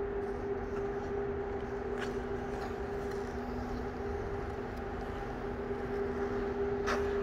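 Steady hum of indoor ice-rink machinery, an even drone holding two constant tones, with a faint short scrape of skate blades on the ice about two seconds in and again near the end.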